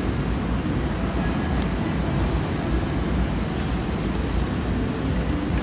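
Steady street traffic noise: a continuous low rumble of motor scooters and cars.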